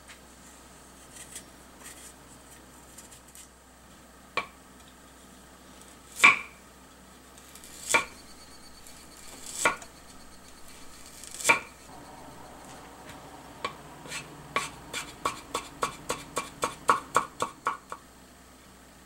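Kitchen knife cutting fresh ginger root on a wooden cutting board: five single slicing strokes, one about every two seconds, then a quick run of chops, about three to four a second and speeding up, as the slices are cut into thin matchsticks.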